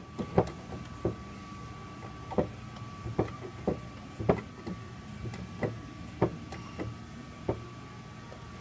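Irregular sharp metallic clicks and ticks, about one or two a second, from the Rail Saver hydraulic ram and the crushed steel frame rail it is pushing out, over a faint steady hum.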